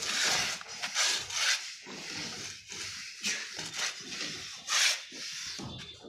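Plastering tool scraping over wet sand-cement mortar on a wall in a series of short, irregular strokes.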